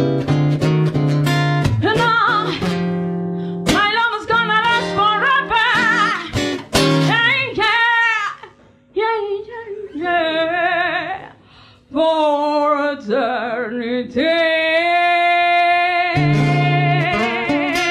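A woman singing a slow blues to strummed acoustic guitar. About eight seconds in the guitar drops out and she sings alone with wide vibrato, ending on a long held note; the guitar comes back in near the end.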